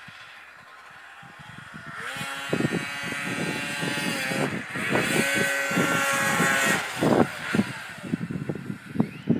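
Lynx Rave 670 snowcross snowmobile's two-stroke engine coming in about two seconds in and running hard at high revs, with a brief dip in the middle. The engine falls away after about seven seconds.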